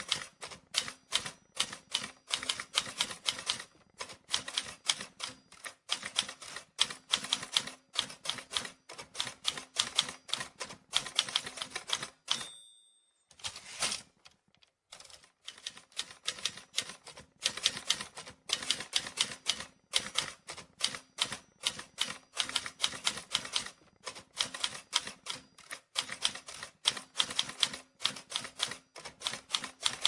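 Manual typewriter being typed on at a quick, uneven pace, each keystroke a sharp clack of the typebar striking. About twelve seconds in, a short bell-like ring sounds, typical of the typewriter's margin bell. The typing pauses for about two seconds, then resumes.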